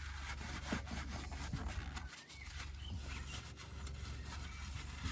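Scattered light knocks and clicks from tools and engine parts being handled, over a steady low hum.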